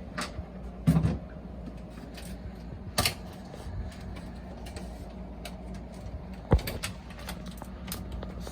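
A few sharp knocks and clicks from parts being handled, about a second in, about three seconds in and loudest at about six and a half seconds, over a steady low hum.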